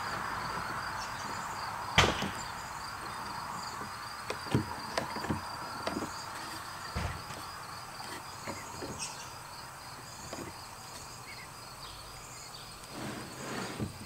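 Scattered clicks and light wooden knocks of a one-handed bar clamp and a small walnut block being set against the fence of a table saw sled, the sharpest click about two seconds in. Faint steady cricket chirping underneath.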